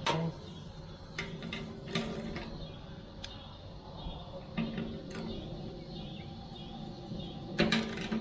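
Small metal clicks and knocks as a threaded probe-port fitting is handled and seated into the steel wall of a barrel smoker, with a denser, louder run of clicks near the end as a wrench goes onto its nut.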